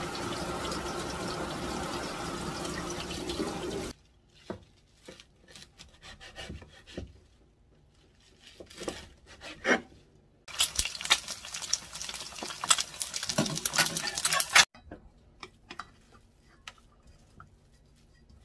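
Tap water running steadily onto young radish greens in a bamboo basket in a stainless steel sink, cutting off suddenly about four seconds in. Then knife cuts knock on a wooden cutting board, scattered at first, then a quicker, louder run for a few seconds.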